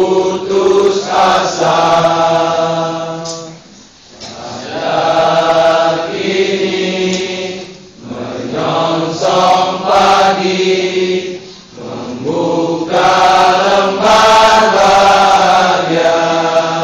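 A group of voices singing a farewell song together in long, held phrases, with a short breath-pause about every four seconds.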